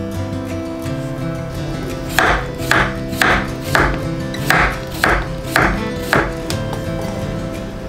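Knife slicing a cucumber on a wooden cutting board: eight crisp cuts, about two a second, starting about two seconds in. Background music plays throughout.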